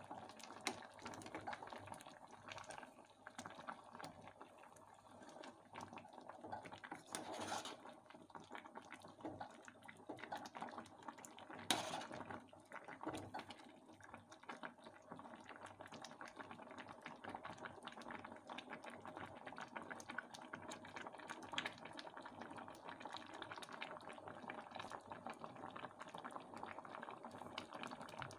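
Thick chanterelle and vegetable stew simmering in an enamel pot, a continuous faint crackle of small popping bubbles. A few sharper clicks stand out, the loudest about twelve seconds in.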